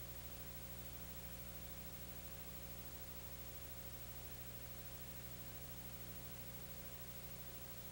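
Faint steady hiss with a low electrical hum, the noise floor of a transfer from silent film; no other sound.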